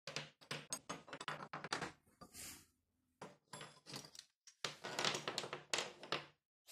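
Wooden file handles and steel files clattering and knocking against a wooden workbench top as they are gathered and laid down, in quick runs of sharp clicks with a brief scrape about two and a half seconds in.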